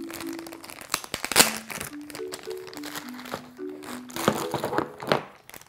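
Clear plastic bag crinkling and crackling in bursts as Play-Doh tubs are handled and pulled out of it, loudest about a second and a half in and again near the end, over light background music of plucked or mallet-struck notes.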